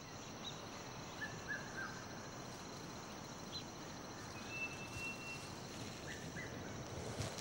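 Forest ambience: a steady high insect drone, with a few short bird chirps and one longer whistled bird note.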